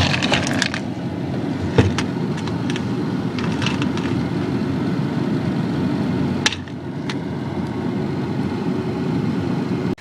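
Hailstorm: a steady heavy downpour with scattered sharp cracks of hailstones striking hard surfaces. The loudest crack comes about six and a half seconds in.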